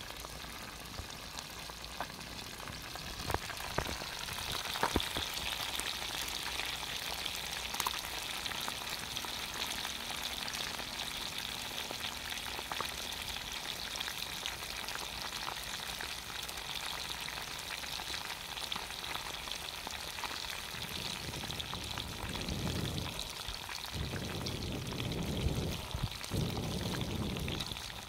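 Pieces of fish deep-frying in plenty of hot oil in a pan over a wood fire: a steady, dense sizzle with scattered crackles and pops.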